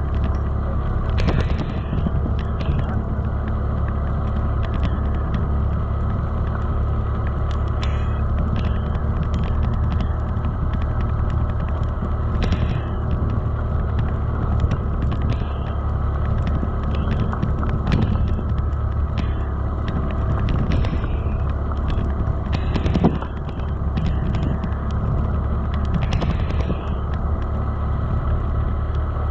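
Motorcycle engine running steadily on the move, a constant low drone with short clicks and knocks scattered through it.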